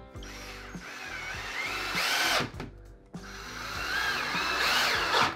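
Ryobi cordless drill running under load into pressure-treated 4x4 timber, in two long runs that each grow louder and then stop abruptly.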